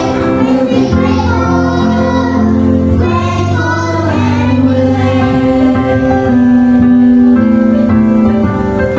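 A child singing a slow song with instrumental accompaniment, holding long notes.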